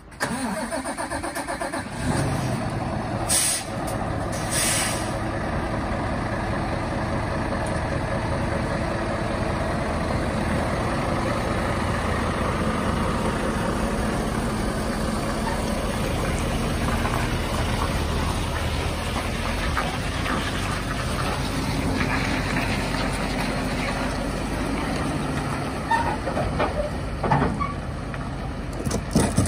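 Scania S650 truck's V8 diesel starting: it cranks briefly, catches about two seconds in and settles into a steady idle, with two short air hisses a few seconds after it starts. Near the end the truck drives off.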